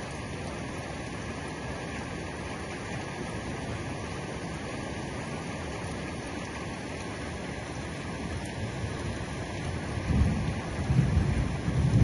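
Heavy rain falling steadily, with a low rumble of thunder building up in the last few seconds and becoming the loudest sound.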